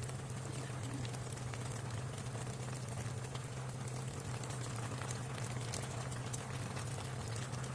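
A pot of thick snail, green banana and tofu stew boiling hard, bubbling steadily, over a steady low hum.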